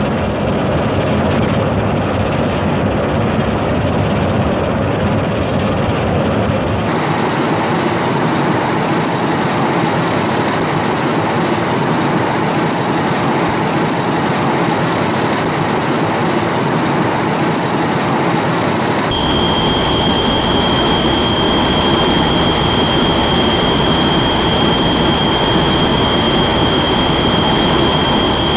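Loud, steady rushing rumble from a monster-film sound effect, with a train-like character. It changes abruptly about 7 and 19 seconds in, as if three clips are joined, and a steady high whine runs through the last part.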